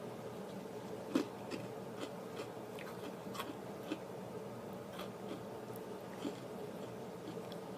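Irregular small crunches and crackles of someone eating an Oreo cookie filled with popping candy, the loudest snap about a second in, over a faint steady hum.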